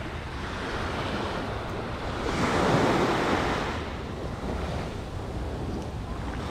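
Ocean surf washing onto a beach, one wave swelling and then fading about halfway through, with wind on the microphone.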